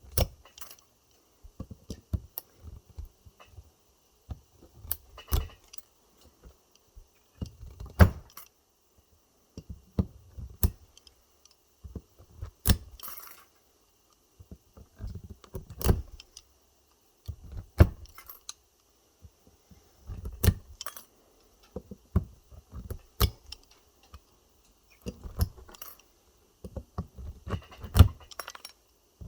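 Irregular metallic clicks, clinks and light knocks as pliers grip and tear welded nickel strip off the cells of an e-bike battery pack.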